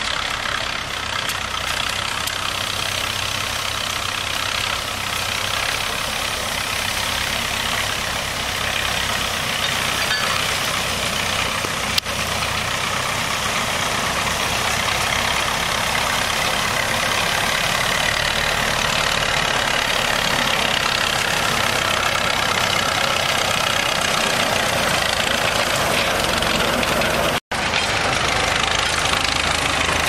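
Narrow-gauge diesel locomotive engine running steadily at a low idle.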